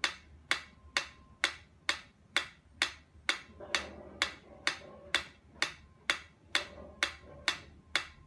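Pyramid-shaped mechanical metronome ticking at a steady tempo, about two sharp ticks a second.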